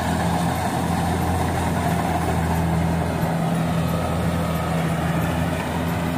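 Rice combine harvester's engine running steadily, a constant hum.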